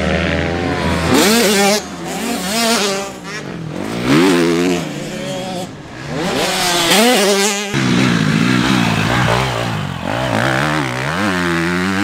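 Motocross dirt bikes revving hard on the track, the engine pitch climbing and dropping back several times as they shift through the gears.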